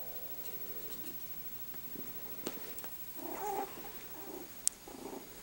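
Yorkshire terrier puppies playing, making a run of short, low play growls about three seconds in. A sharp click comes near the end.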